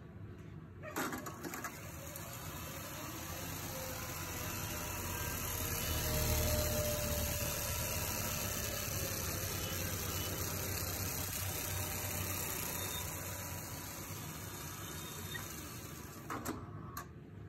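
Studer A820 reel-to-reel tape recorder in fast rewind: a click as the transport engages about a second in, then the whirring hiss of tape spooling at high speed, swelling to its loudest about six seconds in and slowly easing off. Near the end come a few clicks as the transport is stopped.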